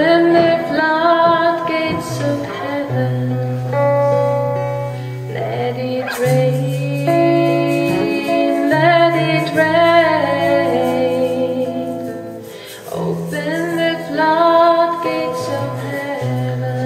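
A woman sings a slow devotional song over long, steadily held low accompaniment notes, with a hand drum struck now and then.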